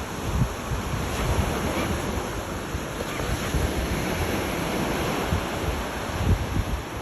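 Sea waves washing steadily on the shore, with wind rumbling and buffeting the microphone, strongest in a low gust about six seconds in.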